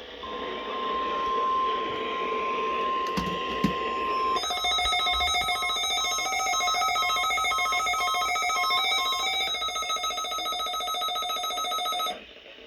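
NOAA Weather Radio alert: a steady single-pitch warning tone for about four seconds, then a harsher electronic alarm of several tones beeping and warbling rapidly, which cuts off abruptly near the end.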